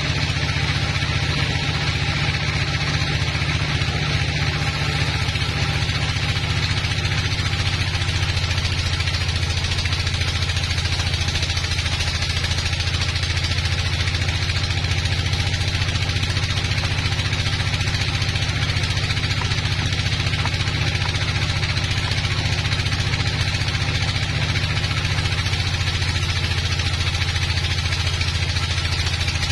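Large band sawmill running steadily: a continuous machine drone with a hiss above it.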